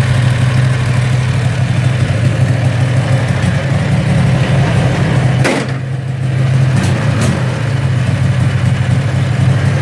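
Predator 670cc V-twin engine idling steadily on a cold start, with a click and a short dip in level about halfway. It runs evenly without surging now that a return-to-tank bypass filter eases the electric fuel pump's pressure on the carburetor float needle, so it no longer floods the plugs.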